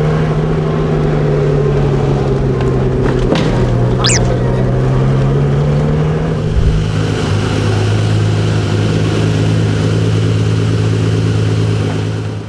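Ferrari Testarossa's flat-12 engine running steadily at low speed, heard from inside the cabin while driving, its pitch dropping about six seconds in. A brief high squeak sounds about four seconds in.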